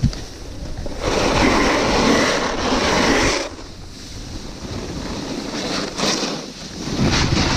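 Snowboard sliding and carving on packed snow, with wind rushing over the action camera's microphone. The board scrapes loudest from about a second in for two seconds, eases off, then builds again near the end.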